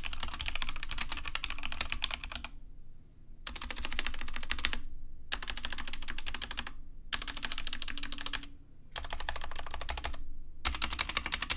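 Fast typing on a Krux Atax Pro Retro Creator RGB mechanical keyboard with stock, unlubed Gateron Pro Yellow linear switches: a dense stream of key clacks in runs of a second or two, broken by several brief pauses.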